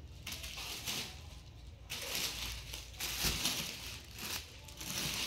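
Cloth garments being handled and folded, rustling and crinkling in several bursts.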